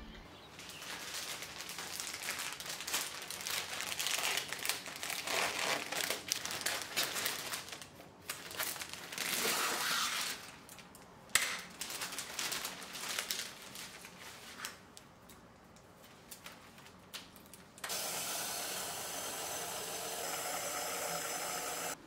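Rustling and crinkling of a flower bouquet's paper-and-plastic wrapping handled and pulled off by hand, with one sharp click about eleven seconds in. A steady rushing hiss follows for the last four seconds.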